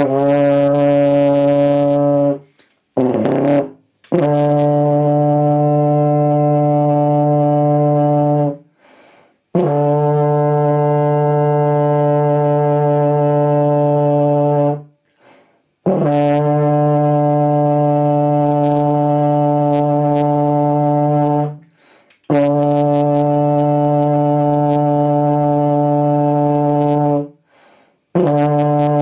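Tenor horn played by a beginner, blowing a series of long held notes of about five seconds each, all on the same low pitch (a sounding D), with short breaks for breath between.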